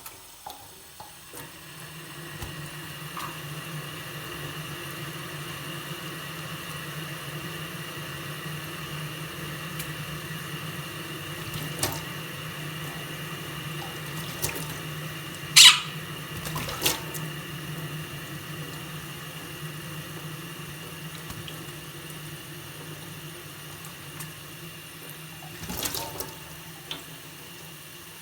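Water running steadily from a tap into a sink, with a few short, sharp sounds over it; the loudest comes a little past halfway.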